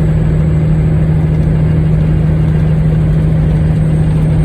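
Steady drone of a 2002 Peterbilt 387 semi truck's diesel engine heard from inside the cab while driving, with even road noise beneath it.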